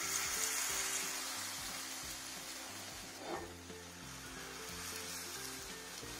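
Gram-flour omelette batter sizzling as it is ladled into hot oil in a nonstick frying pan on a low flame and spread out. The sizzle is strongest at first and fades gradually.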